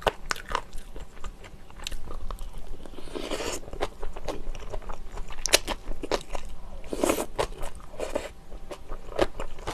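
Close-miked eating of a spoonful of rice topped with napa cabbage kimchi: chewing with crunches of the crisp cabbage and many short wet mouth clicks, a little louder about three seconds in and again about seven seconds in.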